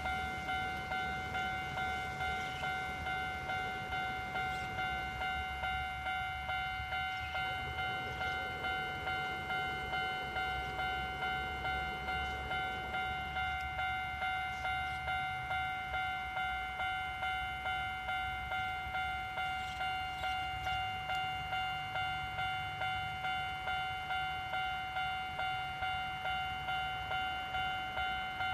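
Japanese railway level-crossing warning bell ringing in a steady, even rhythm of about two strokes a second, the crossing's signal that a train is approaching.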